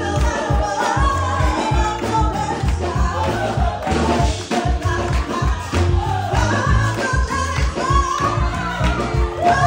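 Live gospel singing through a PA: several voices, a woman's lead voice on top, over amplified accompaniment with a steady, heavy bass beat.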